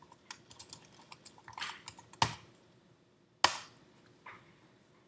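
Typing on a computer keyboard: a run of quick, light key clicks, then two sharper, louder single clicks a little over a second apart, the second about three and a half seconds in.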